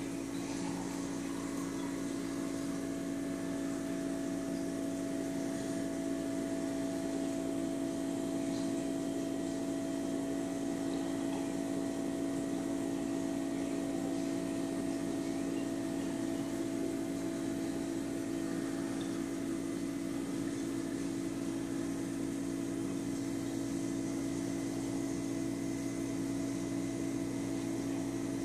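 Reef aquarium equipment running: a steady electric hum and whir of pumps with a constant low drone and an even hiss, unchanging throughout.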